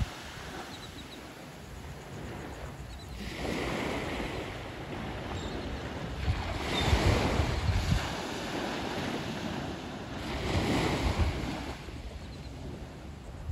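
Small surf breaking and washing up a sandy beach: three swells of wave hiss a few seconds apart, the middle one loudest, with wind rumbling on the microphone.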